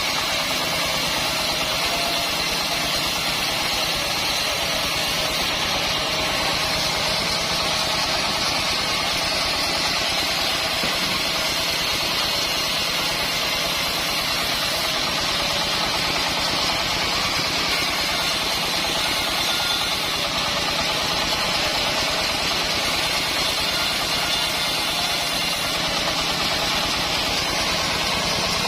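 Band sawmill running steadily: a continuous, even mechanical noise from its drive and saw blade, with a thin high whine running through it.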